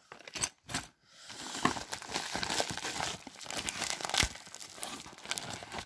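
Clear plastic bags crinkling and rustling as they are handled, after a few light clicks in the first second.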